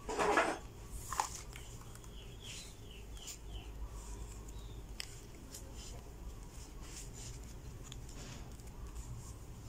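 Soft rustling and crinkling of a banana-leaf parcel as it is tied with a thin bamboo strip, with a short sharp rustle right at the start. A quick run of faint high chirps comes about two and a half seconds in.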